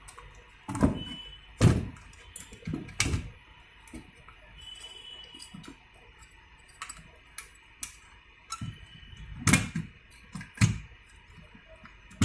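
Intel stock CPU cooler being handled and worked loose from a motherboard, its plastic and metal parts giving irregular clicks and knocks, a few of them heavier thuds.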